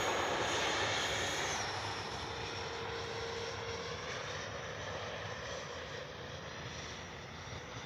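Electric ducted fan whine of an E-flite F-16 70 mm RC jet in flight, fading steadily as it flies away after a close pass, its pitch slowly falling.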